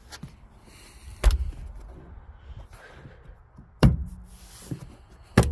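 Three sharp knocks, spaced about two seconds apart, as a van's plastic interior trim panel is pushed and struck to seat its retaining clips.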